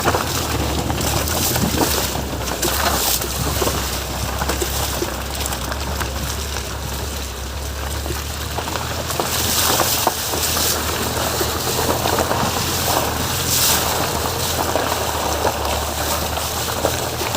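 Ford EcoSport driving on rough off-road ground: a steady low engine drone under a loud, uneven rushing noise that swells every few seconds.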